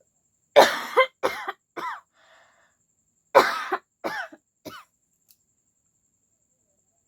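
A person with a cold coughing: two fits of three voiced coughs each, the first starting about half a second in and the second about three seconds later, with the first cough of each fit the loudest.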